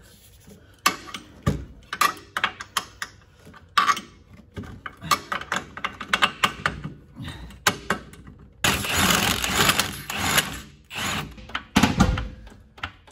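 Metal suspension parts and hand tools being worked under the car: scattered clicks, clanks and knocks as the rear lower arm is jacked and lined up for its bolts. There is a longer rattling noise of about two seconds a little past the middle, and a heavy thump near the end.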